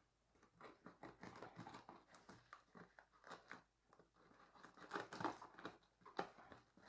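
Scissors cutting through plastic parcel wrapping and packing tape: a run of small irregular snips and crinkles, loudest about five seconds in and again a second later.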